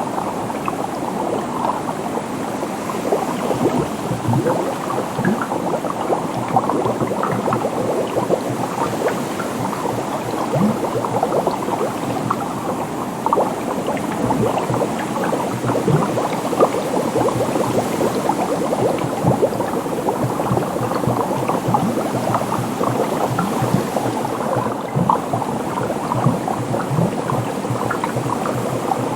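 Water bubbling steadily, a dense run of small bubble pops and gurgles with no letup.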